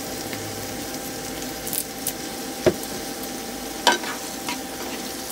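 Chopped onions and peppers sizzling in an electric skillet set to 350, stirred with a spatula, with a couple of sharp clicks a little past halfway and about four seconds in.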